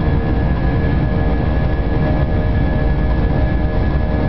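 Airbus A320 heard from inside the passenger cabin as it rolls along the ground: a loud, steady low rumble with a constant engine hum over it.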